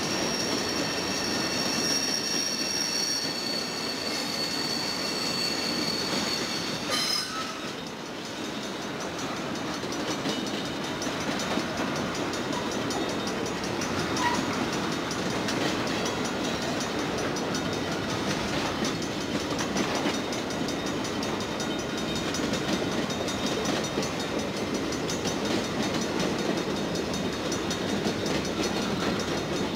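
Freight cars rolling past on steel wheels, a steady rumble on the rails. A high wheel squeal sounds over it for about the first seven seconds, then stops.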